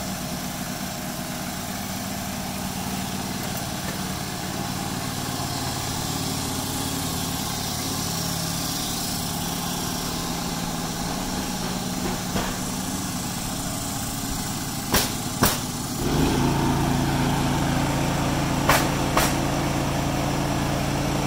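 An engine running steadily on a construction site, getting louder about three-quarters of the way through, with two pairs of sharp knocks near the end.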